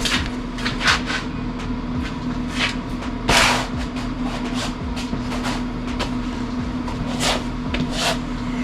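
A steady electrical hum runs throughout, with irregular knocks and clanks of metal being handled, the loudest about three and a half seconds in.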